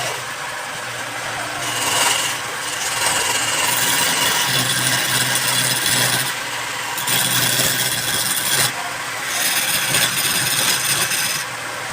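A power tool cutting or abrading wood: a harsh rasping noise over a steady motor hum, coming in passes of a second or two with short breaks between them.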